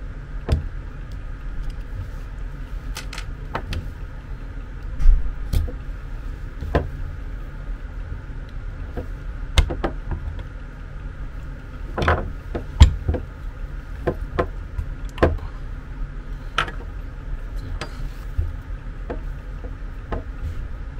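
Scattered clicks and light knocks of a screwdriver and small metal parts being handled as a bed linear actuator's electric motor is taken apart by hand, over a steady low hum.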